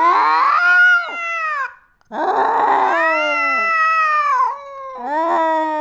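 Domestic cat yowling: long drawn-out calls that bend up and down in pitch, three in a row with short breaks between.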